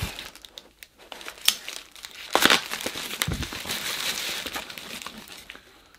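Plastic bubble wrap crinkling and rustling as it is handled and pulled open, with irregular sharp crackles, the loudest about two and a half seconds in.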